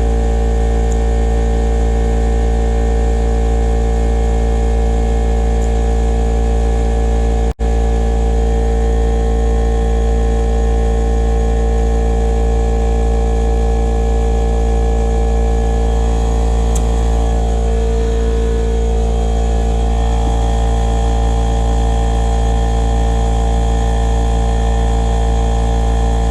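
Battery-powered portable tire inflator running steadily while filling a flat car tire toward 32 psi: a constant motor-and-pump hum that cuts out for an instant about seven and a half seconds in.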